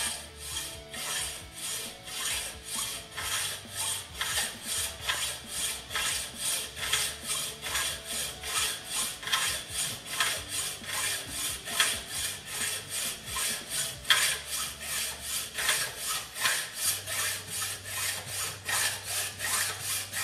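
Hand hacksaw cutting through a metal bracket: back-and-forth strokes, about two to three a second.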